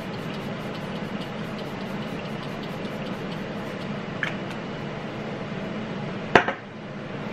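Fresh Vitamin Nectar face mist being sprayed over a made-up face to set the makeup: a steady hiss over low room hum. A single sharp click comes about six seconds in, after which the hiss drops back.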